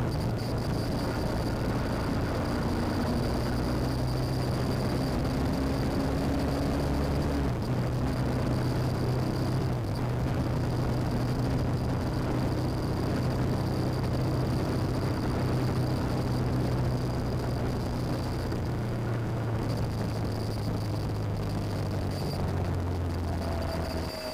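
BMW R1150GS Adventure's boxer-twin engine running at a steady road speed, with wind and road noise. The engine note changes about seven seconds in and again near the end, as the overall level drops.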